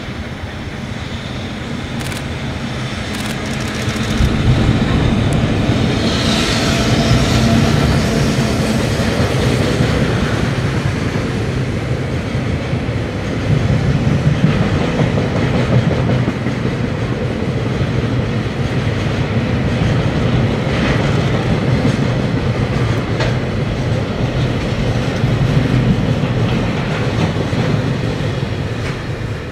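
A freight train passing: an EF65 electric locomotive followed by a long string of oil tank wagons rolling by. The sound grows about four seconds in as the train comes abreast and eases off near the end as the last wagons go by.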